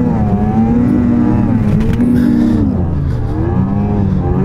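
Ski-Doo snowmobile engine running under throttle through deep powder, its revs falling and rising several times.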